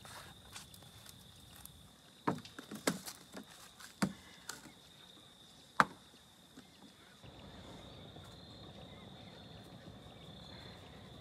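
Seasoning bottles and jars clicking and knocking as they are handled and set down on a wooden table, several sharp knocks in the first half, then a soft steady hiss of seasoning being shaken onto raw meat. A steady high insect trill runs underneath.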